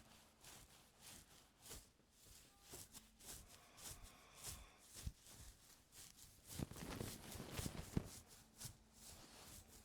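Ear-cleaning tools scraping and rustling in an ear close to the microphone: soft, irregular scratches and clicks, with a denser run of scraping about seven seconds in.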